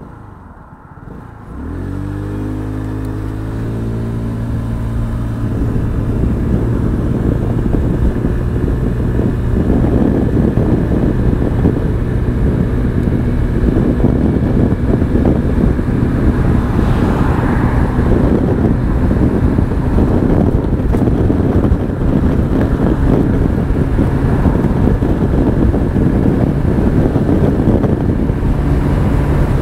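Honda Forza 125 scooter's single-cylinder four-stroke engine going from idle to full throttle about a second and a half in: the revs rise quickly, then hold high and steady through the automatic transmission while the scooter accelerates to 100 km/h, the sound growing steadily louder.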